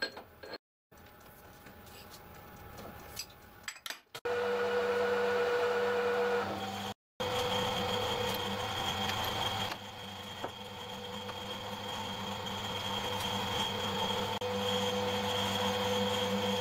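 Metal-working lathe running with a steady hum and whine that comes on about four seconds in, after a few light clicks and knocks as work is set in the chuck.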